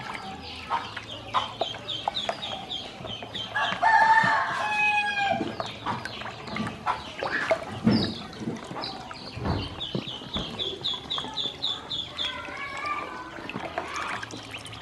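Ducklings peeping in fast runs of short, high cheeps, with a louder, drawn-out call about four seconds in and a few soft knocks near the middle.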